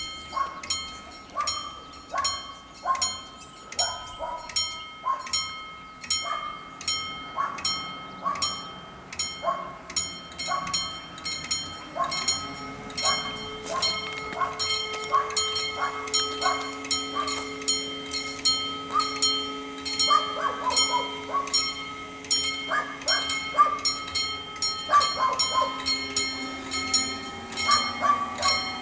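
Italian level-crossing warning bells ringing a steady, rapid series of dings. From about halfway through, the strikes of the several bells fall out of step and overlap, and a steady low drone, likely the approaching diesel train, joins them.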